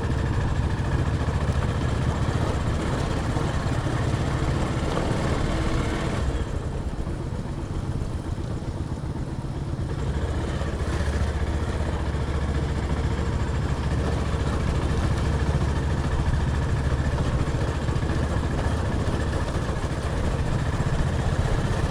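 Motorcycle engine running steadily while riding a rough off-road track, with a rushing wind and road noise over the engine drone; the hiss eases for a few seconds in the middle.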